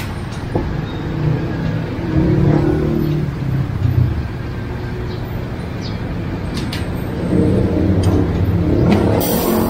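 Road traffic: motor vehicle engines running and passing, swelling louder about two seconds in and again near the end, with a short hiss just before the end.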